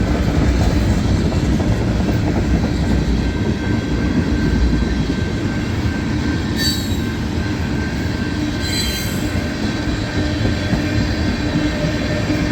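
Freight cars of a long CSX mixed freight train rolling past, a steady rumble of steel wheels on rail. Two brief high-pitched wheel squeals stand out, about six and a half and nine seconds in.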